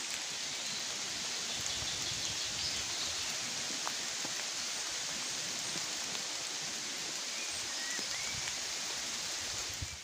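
Rain falling steadily on the leaves of trees, an even hiss.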